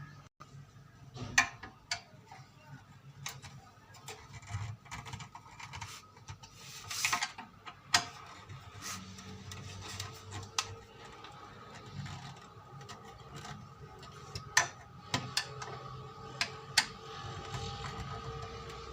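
Screws being driven into an electric iron's handle with a screwdriver: scattered small clicks and knocks of the tool and the iron's body being handled.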